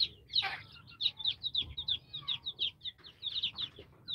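A group of young chicks peeping: many short, high, falling peeps, several a second, some overlapping.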